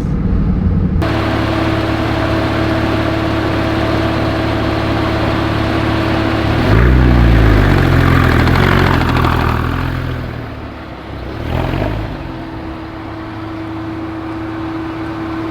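Porsche 911 Carrera S 3.8-litre flat-six running at low speed, revving up and back down about seven seconds in with a shorter blip near twelve seconds, over a steady drone and faint whine. The car is being driven with a judder on clutch engagement that the owner puts down to a failing clutch or a broken motor mount.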